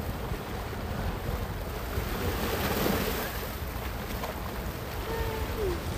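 Small sea waves washing over a rocky shore, with wind buffeting the microphone as a low rumble; the wash swells briefly about halfway through.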